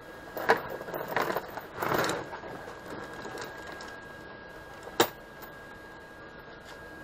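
Steel chain links clinking and rattling as the chain is handled and laid around a bucket on a wooden tabletop, in a bunch of clatters over the first couple of seconds, then one sharp metallic click about five seconds in.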